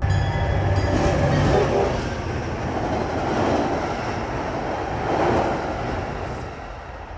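MBTA commuter rail train passing over a steel girder railway bridge: a steady rumble and rattle of wheels on the rails, with a low hum under it for the first couple of seconds, easing off near the end.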